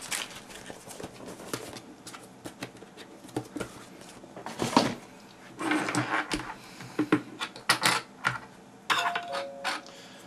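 Clicks, taps and knocks of hands handling a shotgun microphone, its coiled cable and plastic mount clips on a desktop, with a brief two-note squeak near the end.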